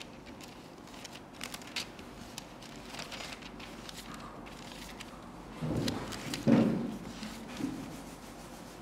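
Bible pages rustling and being turned at a pulpit, in scattered soft crinkles and flicks while the passage is found. A couple of short, low, louder sounds come about six seconds in.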